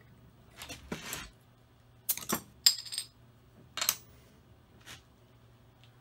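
A steel crown cap pried off a glass bottle with a bottle opener: short metallic clicks and a pop about two seconds in, then the cap clattering and ringing on a wooden bench, with another knock near four seconds.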